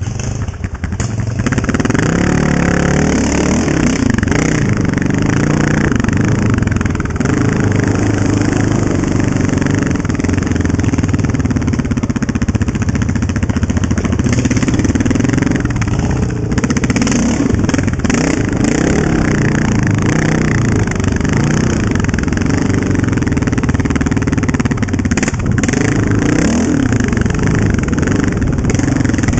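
Honda TRX700XX quad's single-cylinder four-stroke engine running under way, its revs rising and falling as the throttle is worked on and off. It gets louder about a second and a half in.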